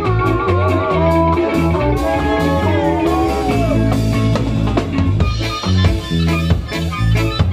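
Live ska band playing: electric guitar over a repeating bass line and drum kit, with a wavering, bending lead melody.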